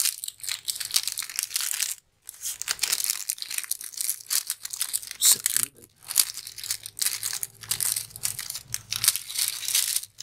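Thin clear plastic bag crinkling as it is handled and opened around a coiled USB cable. The crackling is dense and uneven, with short breaks about two seconds in and near six seconds.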